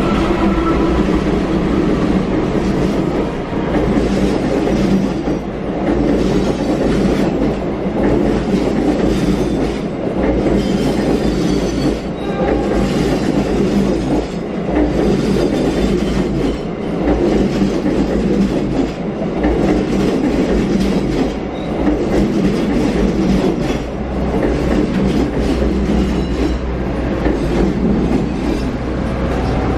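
Locomotive-hauled passenger train passing close by, its coach wheels running over the rails in a continuous loud rumble. The loudness swells and dips about every two seconds as the coaches go past.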